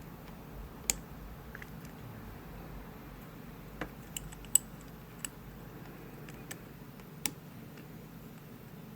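Small, sharp metallic clicks, about seven at irregular intervals, from a lock pick and tension tool working the pin stacks of a Winkhaus Titan euro cylinder during single-pin picking. The loudest click comes a little past the middle.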